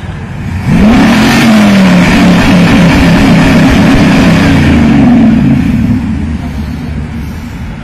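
Old car's engine revved hard at full throttle: it jumps up about a second in, is held wavering at high revs for about five seconds, then drops back. Flames and black smoke pour from the exhaust as unburnt fuel burns in the hot pipe, a sign of an improperly tuned engine.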